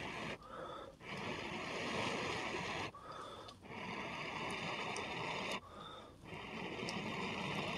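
A person blowing onto a smouldering ember in a tinder fungus to build up its glow. The blowing comes in long breaths of about two seconds each, broken by short pauses to breathe in.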